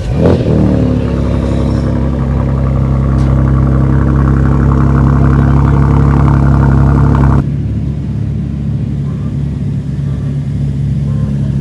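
BMW N55 turbocharged inline-six with a custom exhaust under throttle. The revs fall quickly at the start, then the engine pulls with a loud, steady drone that slowly builds for about seven seconds and cuts off suddenly as the throttle is lifted, leaving a quieter cruising hum.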